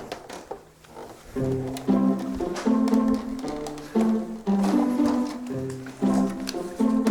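Background music: light plucked-string notes with a bass line, in a steady bouncy rhythm. A few faint clicks and taps sound over it.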